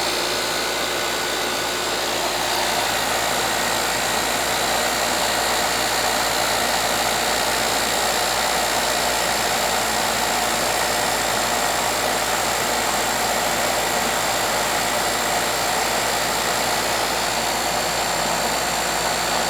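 Coleman air-conditioning condensing unit running steadily, its compressor and condenser fan going just after the compressor has started.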